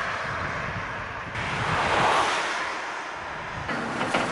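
Road traffic: cars passing close by, their tyre and engine noise swelling and fading, one passing about two seconds in. Near the end it changes to the steady low hum of a moving bus heard from inside.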